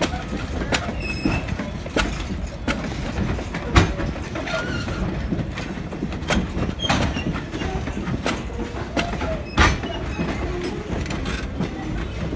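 Vintage passenger coaches rolling slowly past on steel wheels: a low rumble with irregular clicking and knocking from the wheels and couplings, brief faint squeals, and two louder clanks, about four seconds in and again near ten seconds.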